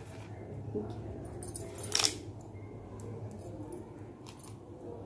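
Beads on rakhi threads clicking and rattling faintly as the bracelets are pulled apart by hand. There are a few scattered small clicks and one sharper click about two seconds in, over a low steady hum.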